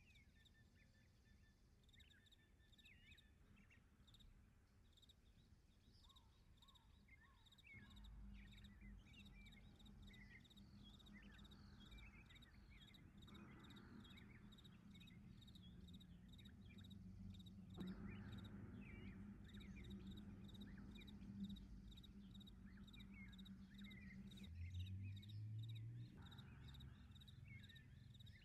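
Faint outdoor ambience of small animal chirps with a rapid, even insect-like pulsing, and a steady low hum that comes up about eight seconds in.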